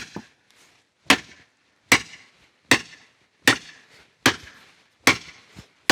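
Hammer striking a steel log-splitting grenade wedged in a log: about seven hard, ringing blows a little under a second apart. The wedge is being knocked deeper into a log that is too wet to split cleanly, so it is not opening.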